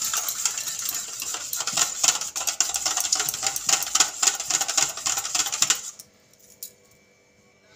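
Small wire whisk beating an egg, sugar and milk mixture in a stainless steel bowl: fast, steady clicking and scraping of the wires against the bowl, stopping about six seconds in.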